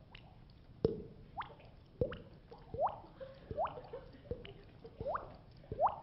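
Mouth-made water-drip sound effect: sharp tongue clicks, most followed by a quick rising whistle, so that each sounds like a drop plinking into water. They come one after another, about every half second to second.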